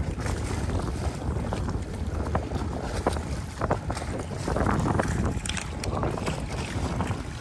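Wind buffeting the microphone in a steady low rumble, with scattered small clicks and knocks.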